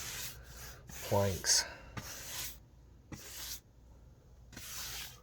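Paintbrush loaded with primer being stroked across the end grain of cedar planks: a few separate scratchy brushing strokes.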